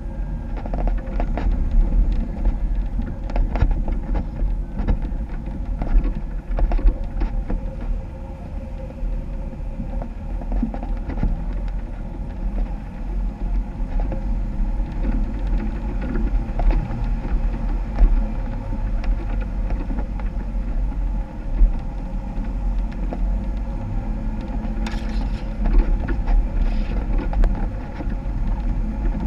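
Jeep engine running off-road with a steady low rumble, with scattered knocks and rattles throughout.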